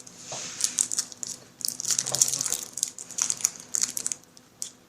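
Plastic wrapping on a card deck crinkling and crackling as it is picked at and pulled open by hand, loudest about halfway through.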